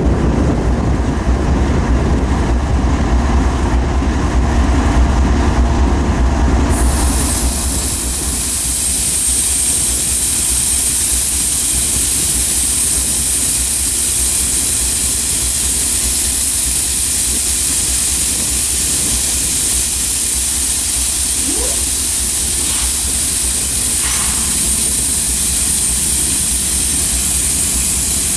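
Idling diesel locomotives, among them Union Pacific's EMD SD70ACe heritage unit 1989, with a steady low rumble. About seven seconds in, a loud, steady hiss of escaping compressed air starts from the air brake lines being worked on at the coupling and runs on.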